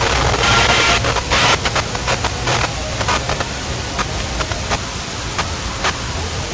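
Large festival DJ sound system played very loud and heard at close range, so distorted on the microphone that it comes out as a noisy hiss over a steady deep bass, with sharp crackling bursts.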